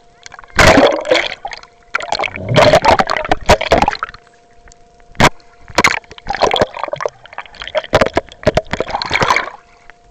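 Lake water splashing and sloshing over a waterproof camera held at the surface, in irregular loud bursts with short gaps. A faint steady two-note hum sits in the gaps between the splashes.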